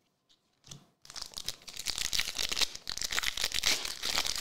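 Foil trading-card pack wrapper being torn open and crinkled by hand, a dense crackling that starts about a second in.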